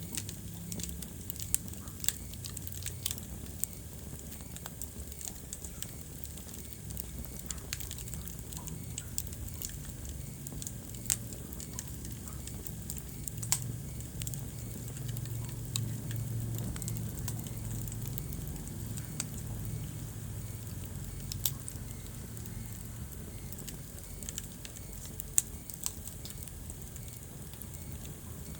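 Wood fire burning in a fireplace: a steady low rumble with irregular crackles and a few sharper pops.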